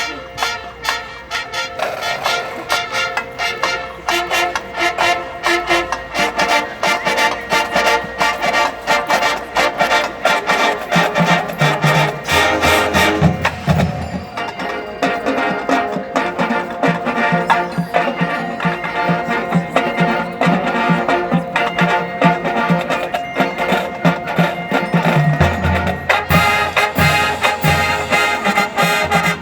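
High school marching band playing: brass over fast, steady percussion, with heavy low drum hits about halfway through and again near the end.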